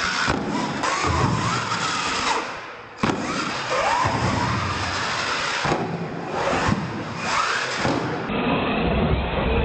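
Radio-controlled monster truck's motor whining, its pitch rising and falling as it is throttled on and off, with tyre noise on concrete and a few sharp thuds from the truck landing and tumbling.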